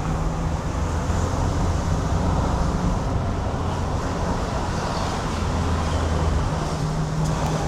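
Road vehicle on the move: a steady low engine hum with road and tyre noise, the hum shifting in pitch now and then as the engine speed changes.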